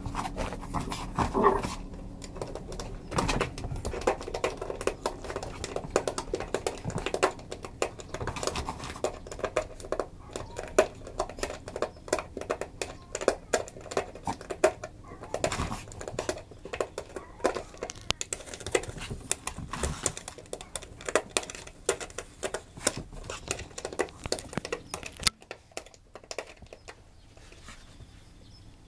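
A cat clawing a flat corrugated-cardboard scratcher, a long run of rapid, irregular rasping clicks that stops a few seconds before the end.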